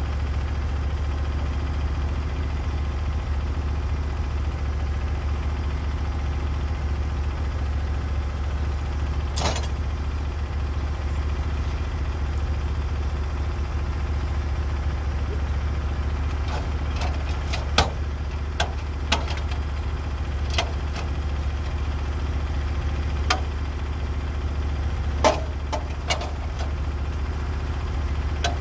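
Norwood HD36v2 portable bandsaw sawmill's engine running steadily, with a scattering of sharp knocks and clacks, one about a third of the way in and several more in the second half.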